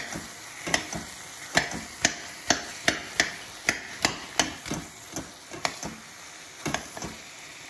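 A metal utensil knocking repeatedly against the pan, about two to three strikes a second, as paneer is chopped up in the frying masala, with a faint sizzle underneath. The strikes pause briefly about six seconds in, then resume.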